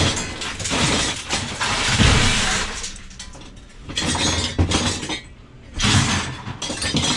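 Hard scrap items clattering and clinking together in several loud bursts, with short pauses between.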